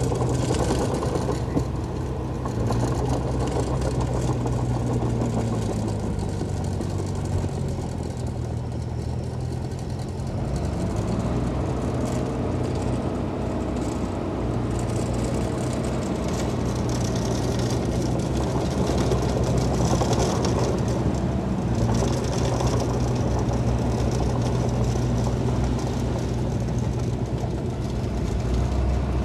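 Heavy earthmoving machine's diesel engine running continuously, its pitch falling and rising again a few times.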